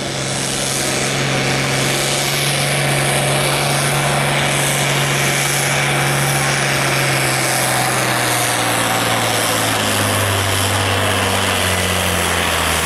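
A pulling tractor's engine runs flat out, hauling a weight-transfer sledge. It swells to full volume in the first second and holds steady, then the revs drop over the last few seconds as the load builds and the engine bogs down.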